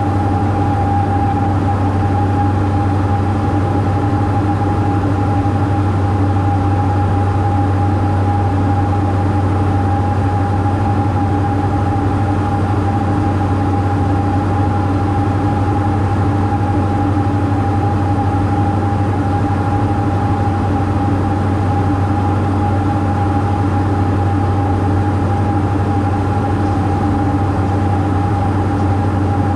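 Diamond DA42's twin engines and propellers running steadily, heard inside the cockpit, with a constant drone and a steady whine above it that never changes, a sign of a held power setting.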